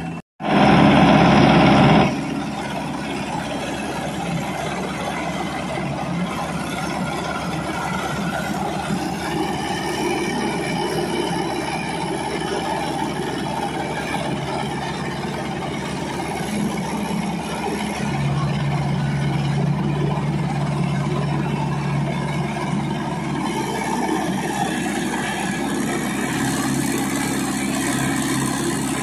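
Diesel tractor engine running steadily, with a brief louder stretch in the first two seconds; the sound grows a little fuller about 18 seconds in.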